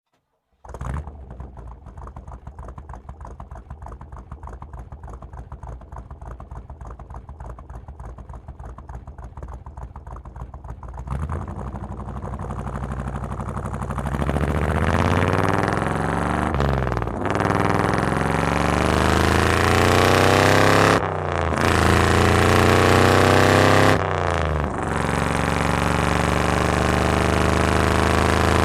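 Hot rod engine starting and settling into an idle with an even pulsing beat. About eleven seconds in it revs up and pulls away, accelerating with rising pitch and briefly dropping at each of about three gear shifts.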